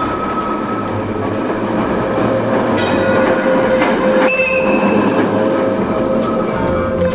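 Tram wheels rolling on the rails and squealing through a curve, with steady squeal tones over a rolling rumble. A higher squeal joins for about a second about four seconds in. It is a sound effect dubbed onto silent film.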